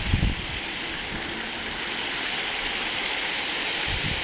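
Steady rush of fountain water splashing, with wind gusting on the microphone at the start.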